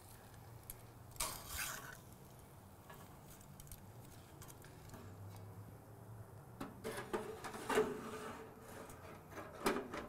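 Steel tongs clinking and scraping against the cast iron grate of an Otto Wilde O.F.B. grill as ribeye steaks are flipped: one clatter about a second in, then a run of sharp clinks and knocks in the last few seconds, over a faint steady low hum.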